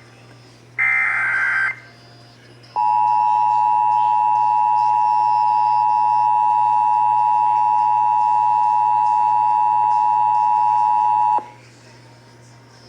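Emergency Alert System activation tones: a one-second screeching burst of SAME header data, then after a short pause the EAS attention signal, a steady two-tone alarm held for about eight and a half seconds that cuts off suddenly.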